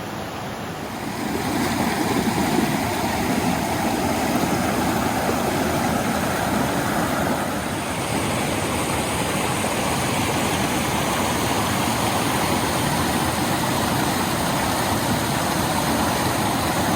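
Waterfall cascading: a steady rush of falling water that grows louder about a second and a half in.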